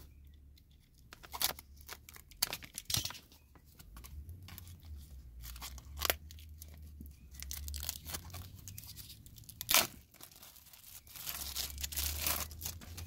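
Plastic shrink wrap being torn open and crinkled off a stack of game cards, in short irregular bursts of tearing and crackling.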